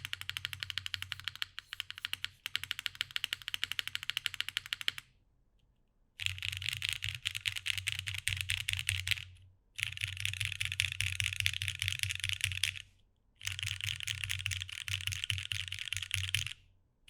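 TGR Jane V2 ME custom mechanical keyboard, with lubed and filmed vintage Cherry MX Black linear switches in an O-ring-mounted aluminium plate and GMK keycaps, typed on fast, a dense stream of clacky keystrokes. About five seconds in it pauses briefly, then comes back as three quick bursts of keys rolled across the home row (a-s-d-f-g-h-j-k-l), each lasting a few seconds.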